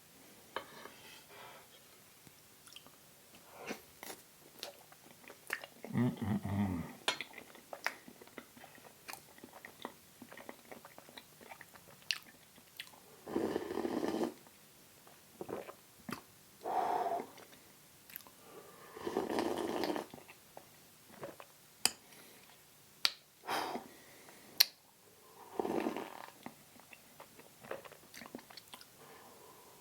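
Close-miked eating sounds: a person chewing and biting soft pumpkin spice cheesecake, with frequent small wet mouth clicks and smacks. Several louder mouth noises come in short bursts every few seconds.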